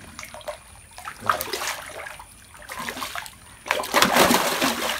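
Water splashing as a large giant gourami thrashes at the surface while held in a man's hands, in a few bursts, the biggest and loudest about four seconds in.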